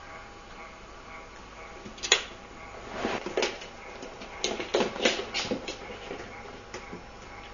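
A cat's paws and claws knocking and skittering on a wooden floor as it pounces and runs at play: one sharp knock about two seconds in, then a run of quick taps and scrapes.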